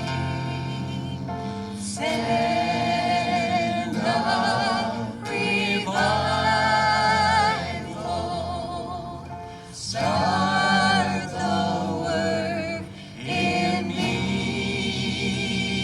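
Gospel hymn sung by a group of voices with vibrato over a sustained instrumental accompaniment, the sung phrases starting and breaking off every couple of seconds.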